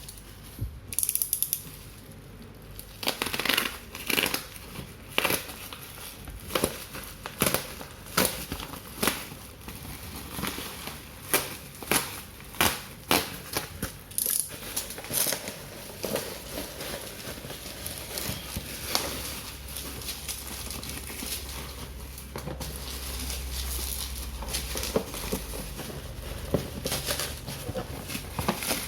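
Cardboard and plastic packaging being handled and opened: irregular clicks and knocks with crinkling and rustling.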